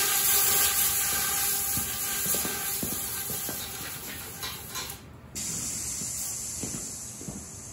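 A steady, loud hiss that breaks off for a moment about five seconds in and then starts again, with a few faint knocks underneath.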